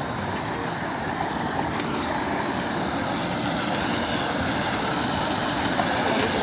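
Steady rush of flowing water from a waterfall and stream, growing slightly louder.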